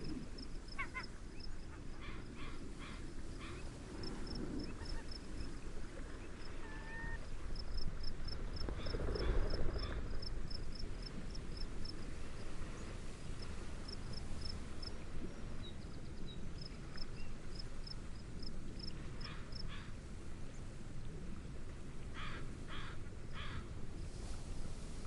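Steady wind and gentle waves, swelling briefly about nine seconds in, under a cricket chirping in a fast, even high-pitched series. Birds call over it in short clusters a few times, with honking, duck-like and gull-like calls.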